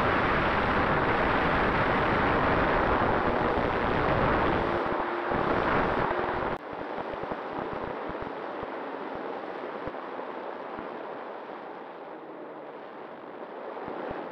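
Wind rushing over an onboard camera on an electric foam RC plane in flight, mixed with its motor and propeller. The noise is loud at first, then drops abruptly about six and a half seconds in and carries on quieter as the plane comes in low.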